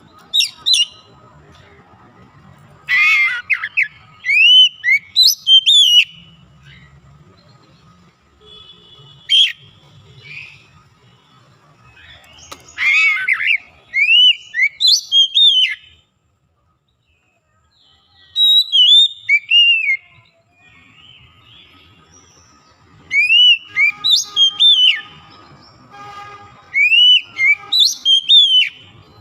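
Oriental magpie-robin (kacer) singing loud phrases of rising and falling whistled notes mixed with quick chattering, in clusters separated by short pauses. The sound drops out completely for about two seconds midway.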